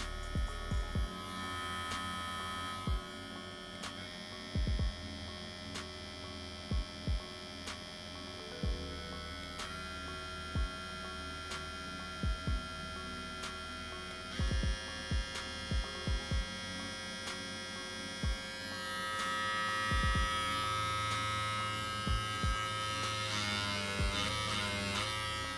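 TCMKY TX768 hair clipper running with a steady motor hum. Its pitch steps to a new note several times and wavers near the end, with scattered low knocks from handling.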